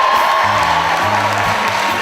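Live theatre band music with a long held high note over changing bass notes, while the audience cheers and begins to applaud.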